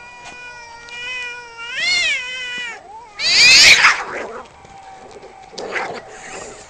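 Cats in a fight standoff caterwauling: one long, wavering yowl that swells and rises in pitch about two seconds in. Then comes a loud, harsh outburst a little past three seconds, the loudest moment, and another shorter harsh burst near the end.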